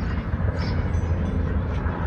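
Steady city ambience dominated by a low traffic rumble, with a couple of faint high chirps about half a second in and near the end.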